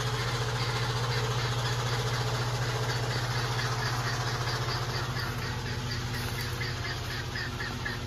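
A steady low machine hum with a fast flutter in it, joined about halfway by short high chirps repeating about three times a second.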